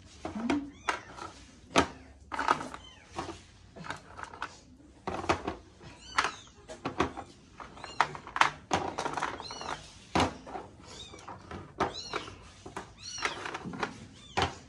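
Baked peanut biscuits tapping and clattering as they are lifted off a metal baking tray and set onto a serving tray, a sharp knock every second or two. Several short cries that rise and fall in pitch come in among them, like a cat meowing.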